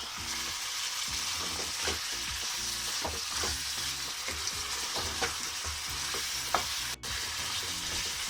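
Chicken with ginger-garlic paste and spice powders frying in a pan: a steady sizzle, with a spoon scraping and knocking against the pan as it is stirred. The sound drops out for an instant about seven seconds in.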